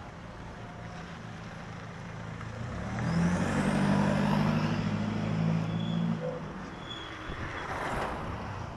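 A motor vehicle drives past close by, its engine loudest for about three seconds in the middle, over steady road traffic noise.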